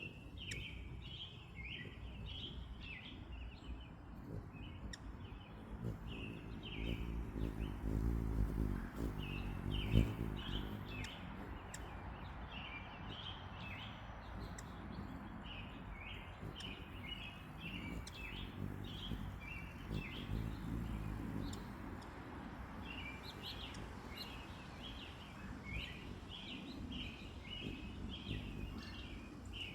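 Hummingbirds giving quick, repeated chirps through the whole stretch. Underneath is a low hum that swells for a few seconds in the middle, with one sharp knock near its peak.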